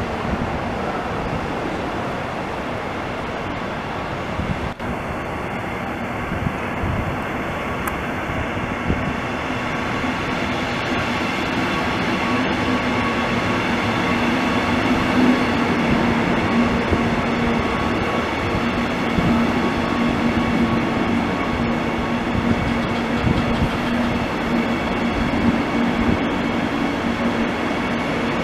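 Israel Railways double-deck passenger train rolling close past, a steady rumble of wheels on rail with a steady hum. It grows louder about ten seconds in as the coaches draw alongside.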